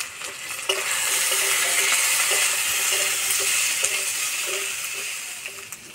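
Cubed potatoes and freshly added ground spices sizzling in hot oil in a metal wok, stirred with a steel spatula scraping the pan. The sizzle swells about a second in and eases off near the end.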